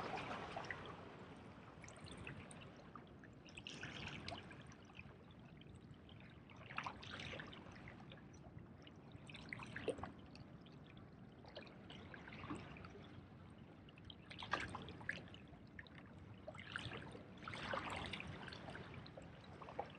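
Small waves washing and trickling against jetty rocks, faint, swelling every two to three seconds.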